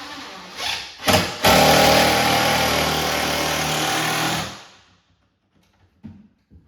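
An electric power tool's motor runs steadily for about three seconds and then stops, winding down. A couple of knocks come just before it starts, and a few light clicks follow.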